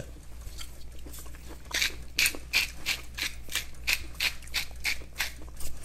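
Tall hand-twisted spice mill being turned over a dish, grinding in a run of short rasping strokes about three a second, starting a couple of seconds in.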